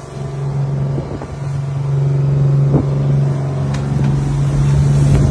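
Boat engine running steadily at a constant pitch, with a couple of light knocks partway through.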